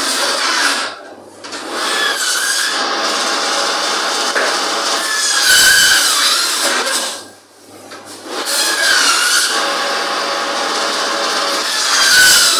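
Meat band saw cutting through beef shank and bone: a steady harsh rasp with a whine that wavers in pitch. It drops away briefly twice, about a second in and again past halfway, between cuts.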